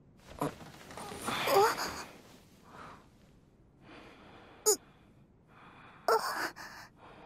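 A young woman's breathy gasps and short sighs, loudest between about one and two seconds in, with a few fainter breaths and small voiced sounds after.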